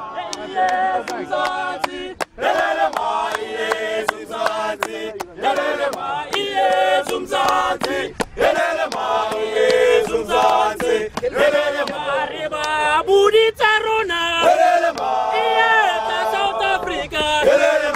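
A group of men singing a celebratory chant together in unison, loud and continuous, with sharp claps scattered through it.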